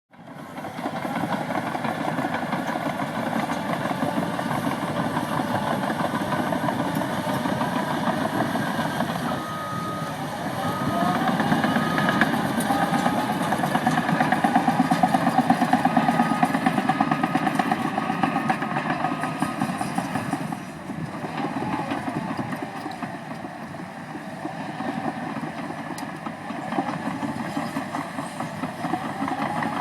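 Caterpillar 963D tracked loader's diesel engine running under work, growing louder for several seconds partway through and easing off later. A reverse alarm beeps a few times about a third of the way in and again near the end.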